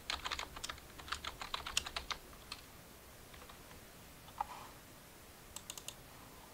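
Typing on a computer keyboard: a fast run of keystrokes for about two seconds, then a single louder click a couple of seconds later and a quick run of four clicks near the end.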